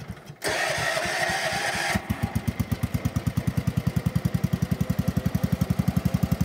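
Starter cranking the stalled Tecumseh engine of an old John Deere garden tractor. About two seconds in the engine catches and runs at a steady, rapid, even beat.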